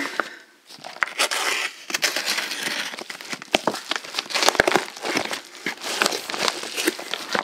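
Holographic metallic mailer crinkling and crackling as it is handled and its flap pulled open by hand, with many small sharp crackles.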